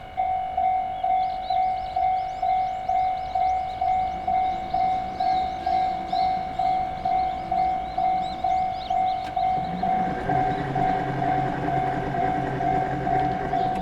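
Japanese railway level-crossing warning bell ringing in an even beat of about two strokes a second. From about ten seconds in, the low running sound of an approaching train grows beneath it.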